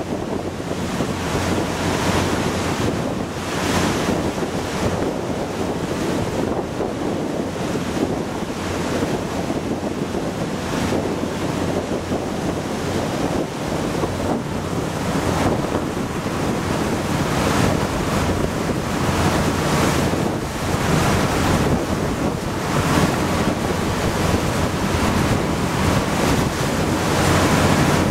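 Water rushing and splashing along the hull of a moving boat, swelling and easing every few seconds, with wind buffeting the microphone. A steady low engine hum runs underneath.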